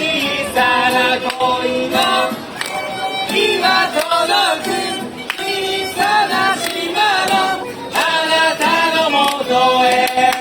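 Music with voices singing, held notes running on without a break.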